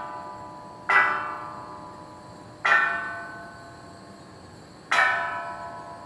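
Korean temple wind bell (pungyeong) hanging from the eaves, struck by its clapper three times at irregular intervals, each stroke ringing with several metallic tones that fade away slowly.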